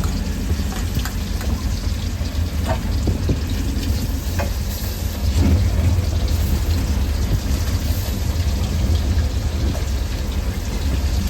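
Fishing boat's engine running steadily, a low rumble under a constant hissing, crackling noise, with a few scattered clicks.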